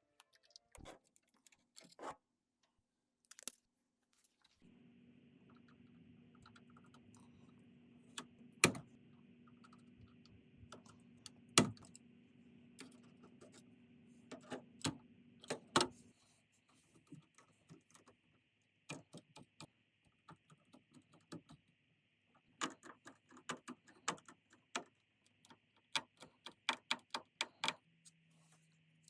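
Scattered clicks and taps of computer parts being handled and fitted, irregular and some sharp, with a faint steady hum under them for a stretch in the first half.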